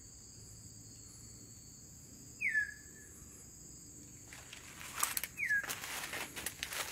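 Steady high-pitched insect drone in forest for the first four seconds or so, with a bird giving two short whistled calls that slide downward, about three seconds apart. Rustling and scraping clicks start near the end.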